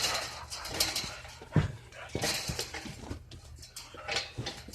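A dog right at the phone, breathing and mouthing at it, with rubbing and knocks as the phone is jostled; a low knock comes about a second and a half in.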